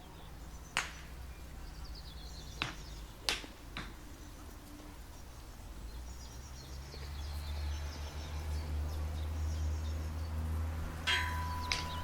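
Outdoor country club ambience: faint bird or insect chirping, with a few sharp clicks or knocks, four in the first four seconds and two more near the end. A low rumble builds from about seven seconds in.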